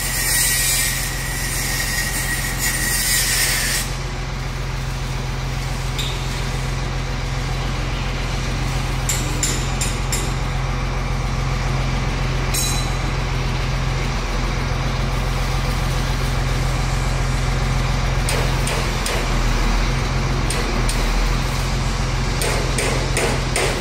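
Beiben 2638 truck's diesel engine running steadily to drive the crane's hydraulics, a continuous low hum. A loud hiss for the first four seconds, and a few light clicks later on.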